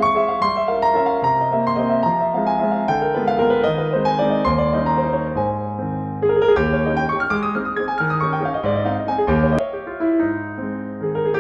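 Background piano music: a solo piano playing a gentle melody over held bass notes.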